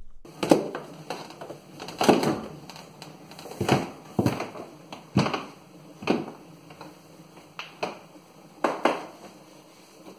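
Irregular rustling and soft knocks of handling and movement close to the microphone, about a dozen over ten seconds and fainter toward the end.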